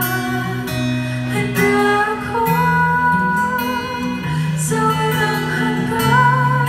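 Live acoustic ballad: strummed acoustic guitar over held bass notes, with a voice singing the melody.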